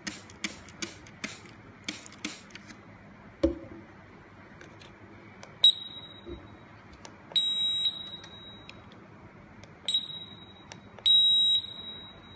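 Hand trigger spray bottle squirting water onto a shot timer several times in quick succession, stopping after about two and a half seconds, then a dull knock. After that the shot timer's beeper sounds four times at one high pitch: two short beeps and two longer half-second tones. It still beeps while soaking wet.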